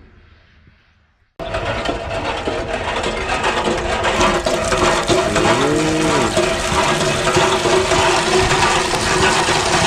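A loud, steady rushing noise starting sharply about a second and a half in, with a single cow moo, rising and falling, about five to six seconds in.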